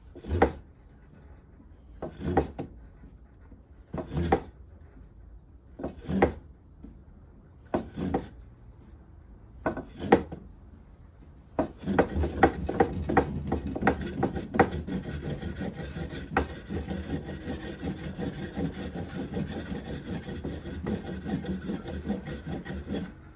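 A Rüdiger fire roll of cotton and wood ash being rolled hard under a board to heat it by friction until it smoulders. First come six single, separate strokes about two seconds apart. Then, about halfway through, fast continuous back-and-forth rubbing starts and stops abruptly just before the end.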